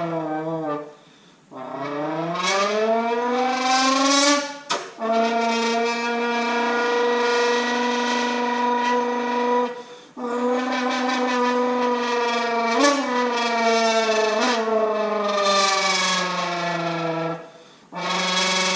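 A person imitating a Lamborghini V10 engine with their voice. It is a buzzing drone that climbs in pitch like a rev, then holds high for long stretches, breaking off briefly about ten seconds in and again near the end.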